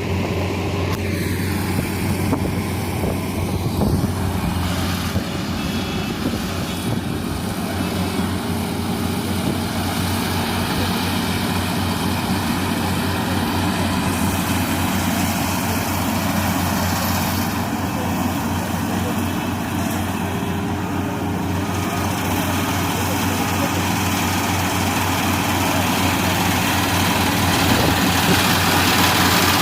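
Combine harvester running steadily at work, its engine and machinery making a constant drone with a strong low hum, growing slightly louder near the end.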